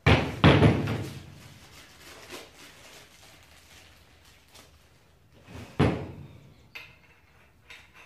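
Black steel pipe handle fittings knocking down onto a wooden plank table: two heavy clunks in quick succession at the start, another about six seconds in, and a couple of lighter clicks near the end.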